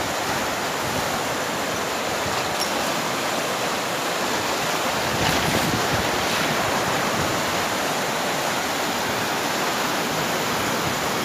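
Fast, turbulent mountain river running over rapids: a steady rushing of whitewater.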